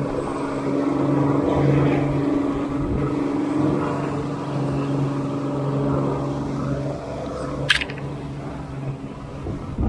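Boat engine running steadily while trolling, a constant droning hum that eases off a little near the end. A single sharp click comes about three-quarters of the way through.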